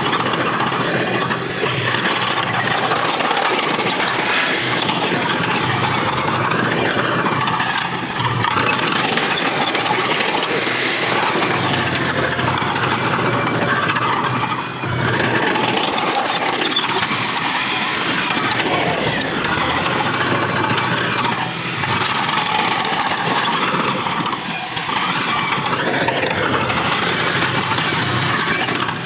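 Heavy diesel earthmoving machinery, a bulldozer working with dump trucks, its engine running steadily amid dense mechanical noise.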